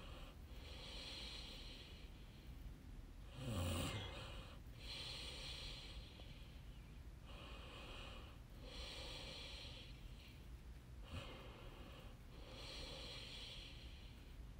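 Faint, regular breathing close to the microphone, each breath lasting about a second and a half. One louder thump comes about three and a half seconds in.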